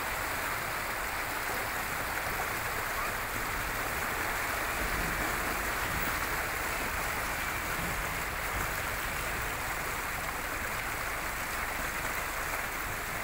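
Shallow river flowing over gravel and stones, a steady noise of running water.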